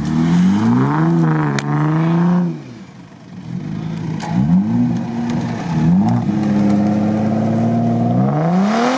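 Jeep Wrangler Rubicon's engine revving hard in surges as it pulls through mud. The revs drop away about three seconds in, pick up again, and climb sharply near the end.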